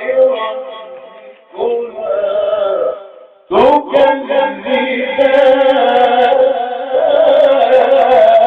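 Male voice chanting Qur'anic recitation in long, drawn-out melodic phrases. Two shorter phrases with brief breaks come first, then a strong, sustained phrase starting about three and a half seconds in.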